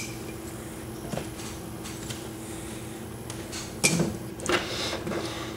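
A lock pick and tension wrench working the six spool pins of a Yale large format interchangeable core, with light ticks and scraping. About four seconds in there is a sharper click and rattle as the plug turns a good way into a spool-pin false set.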